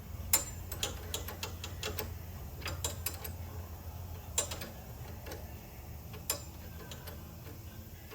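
Irregular sharp metallic clicks and taps of hand tools working the brake line fitting as it is refitted to a motorcycle's rear brake master cylinder, over a steady low hum.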